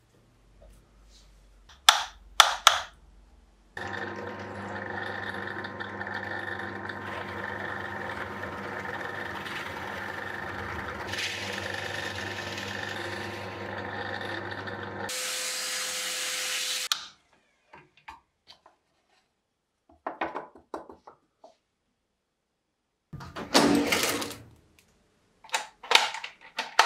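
A few sharp clicks as the drill's keyless chuck is tightened on a bit. Then a drill press runs steadily for about eleven seconds while a small Forstner-style bit bores into plywood, getting louder and hissier just before it stops. Later, small metal parts clink and rattle as they are picked through in a drawer.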